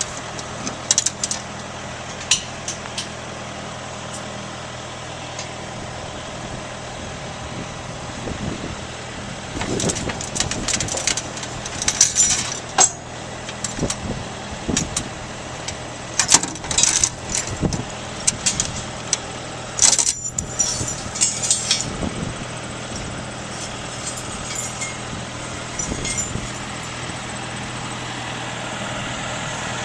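Farm machine's diesel engine running steadily, with frequent sharp rattles and clicks over the hum, thickest through the middle of the stretch.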